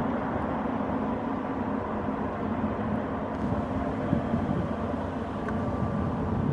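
A passing ro-ro cargo ship's diesel engine and machinery: a steady low rumble with a constant hum.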